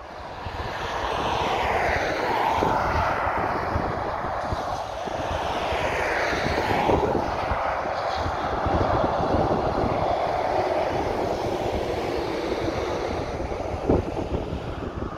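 Motorway traffic passing at speed. A car and an articulated lorry go by with a steady rush of tyre and engine noise that swells and falls away twice.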